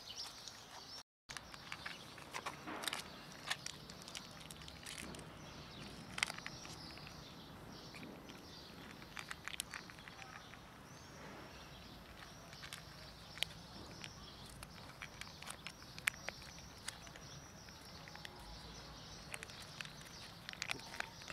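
Stray cats and kittens crunching dry kibble from a plastic tub: irregular short crunches and clicks over a soft steady hiss. The sound drops out for a moment about a second in.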